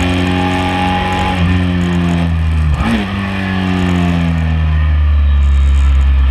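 Sport motorcycle engine heard from on board, holding a steady pitch, then winding down as the bike slows into a corner, and settling to a low steady rumble near the end.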